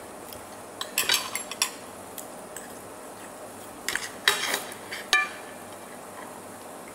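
Fork and knife clicking and scraping on a plate in two short clusters, about a second in and about four seconds in, followed by one ringing clink just after five seconds.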